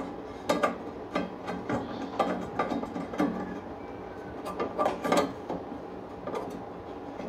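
Hand tools working on the back of a wood stove to unbolt its blower motor: irregular metallic clicks, taps and short scrapes, some in quick clusters.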